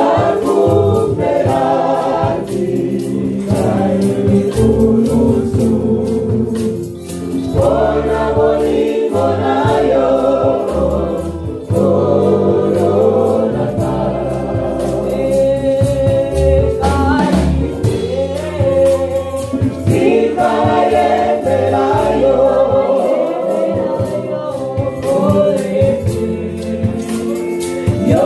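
Gospel choir singing with a band, bass and a steady beat of percussion.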